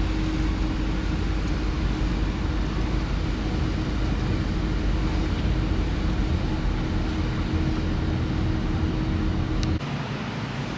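Car driving, heard from inside the cabin: steady low road and engine rumble with a steady hum. Near the end it cuts off suddenly to a quieter, even outdoor background.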